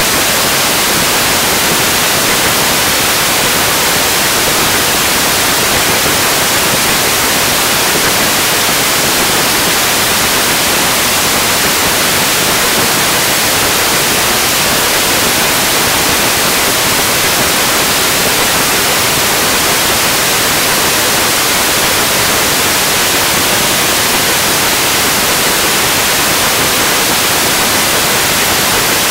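Loud, steady static hiss that cuts in suddenly, the noise of a blank videotape where the recording has ended.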